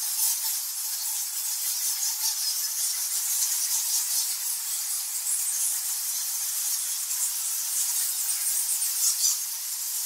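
A roosting colony of flying foxes (nectar-feeding fruit bats) calling: a dense, unbroken mass of short, shrill squeaks and chatter from many bats at once.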